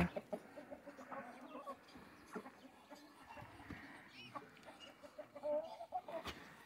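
A flock of domestic chickens clucking quietly as they feed, with a slightly louder call about five and a half seconds in.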